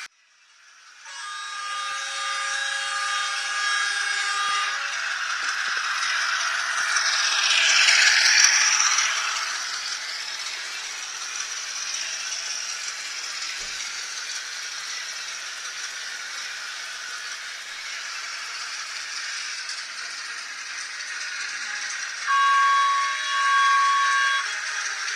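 DCC sound decoder of an N-scale DF11Z model diesel locomotive, playing a chord horn held for about four seconds, then a loud hissing swell, then two short horn blasts near the end. A steady rattly running hiss continues underneath.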